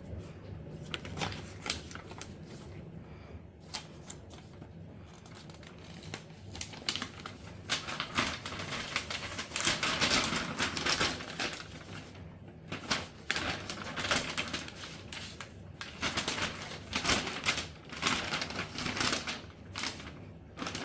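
Paper rustling and crinkling, with irregular clicks and taps, as a folded printed manual is opened out and handled; the rustling is loudest about halfway through and again near the end.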